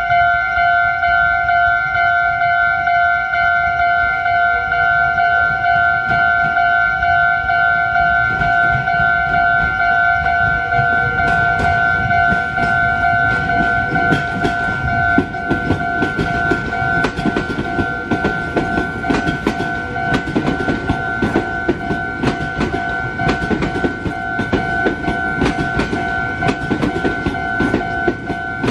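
Level crossing warning bell ringing steadily as a Meitetsu train runs over the crossing. From about eight seconds in, a rapid clatter of wheels over the rails builds up, growing louder about halfway through.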